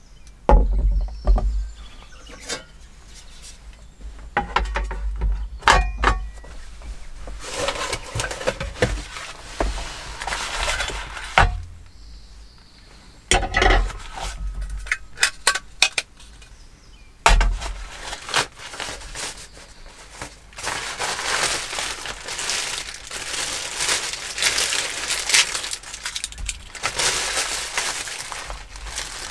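Small metal camping gear being handled: a folding pocket stove and metal tray clink and clatter on a wooden table in a run of sharp knocks. From about twenty seconds in, a plastic bag crinkles steadily as it is opened.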